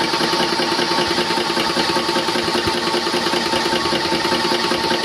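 Airmax electric high-pressure PCP compressor running steadily under load as it fills toward its 300 bar set pressure, a steady mechanical hum with a fast, even chatter.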